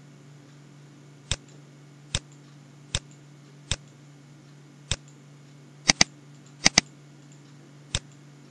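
Sharp computer clicks, about ten at uneven spacing with two quick doubles, advancing a slide presentation's animations, over a steady low hum.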